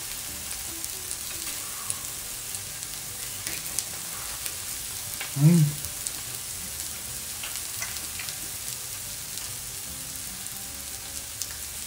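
Lamb chops sizzling steadily on a grill plate, with scattered small crackles. About five and a half seconds in, a short, loud vocal exclamation from the man eating.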